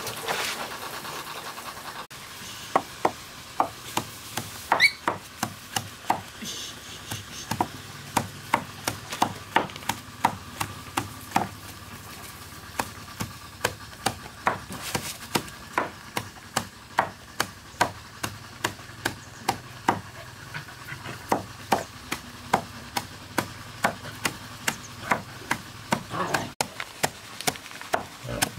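A heavy cleaver chopping a pile of leafy greens on a wooden board: a steady run of sharp knocks, about two a second, starting about two seconds in, with a couple of short pauses.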